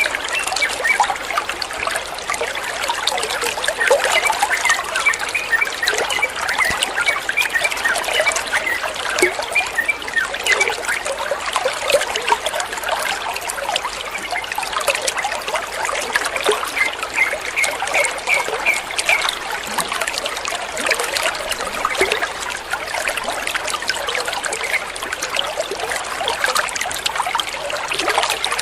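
Running water trickling and splashing steadily, with a few runs of short repeated high chirps mixed in.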